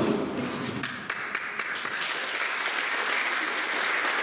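Audience applause: clapping breaks out about a second in and swells into steady, dense applause.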